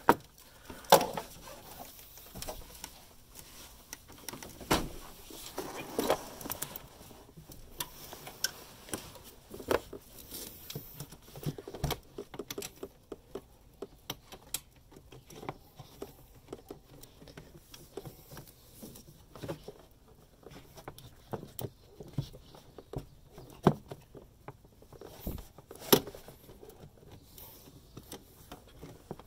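Irregular light clicks, taps and scrapes of a socket ratchet and extension being handled and worked against engine parts, with clothing rustling close by; a few sharper knocks stand out.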